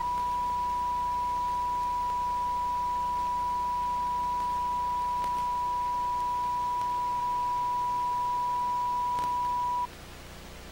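Broadcast colour-bars test tone: a single steady pitch with no change, cutting off suddenly about ten seconds in and leaving faint tape hiss.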